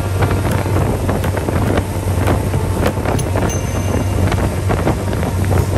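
Motorboat engine running steadily at speed, with wind buffeting the microphone and water rushing past the hull.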